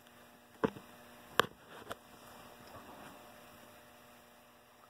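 Steady electrical mains hum from the powered air handler's controls, with two sharp clicks, about half a second and a second and a half in.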